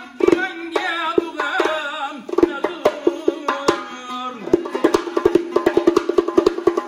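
Uzbek doyra frame drum and a plucked long-necked lute playing together, the lute holding a steady low drone. A man sings a phrase over them in the first couple of seconds, and from about halfway the drum breaks into a fast run of finger strokes, about nine a second.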